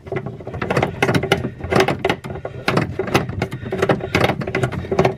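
Large plastic faucet mounting nut being spun off its threaded shank by hand: a rapid, irregular run of plastic clicks and scrapes.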